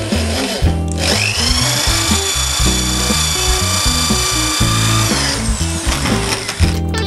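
Power drill with a stepped pocket-hole bit boring through a pocket-hole jig into a wooden board. The motor whines up to speed about a second in, runs steadily for about four seconds, then winds down. Guitar music plays underneath throughout.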